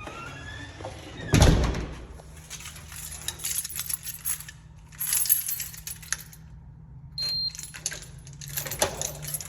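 A loud thump about a second and a half in, then scattered metallic clinks and rattles of small hard objects being handled, with a short high beep near the end.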